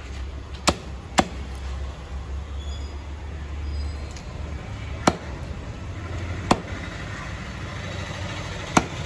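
Heavy broad-bladed fish knife chopping through a tuna head on a wooden stump block: five sharp chops, two close together near the start, then three spread out, the last near the end.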